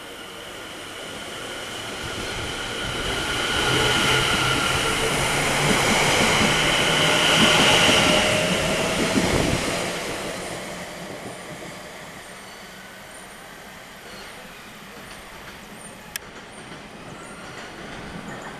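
London Overground Class 710 electric multiple unit running past, its electric drive giving a steady whine over wheel-on-rail rumble. The sound builds as the train nears, is loudest as it passes about halfway through, then fades as it draws away.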